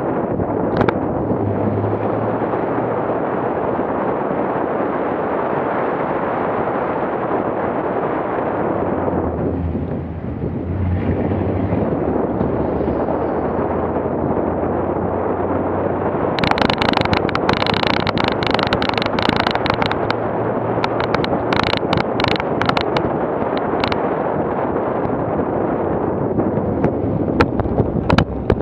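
Off-road rally vehicle driving, heard through a camera on its hood: a loud, steady rush of wind and road noise over the engine, with many sharp knocks and rattles through the second half.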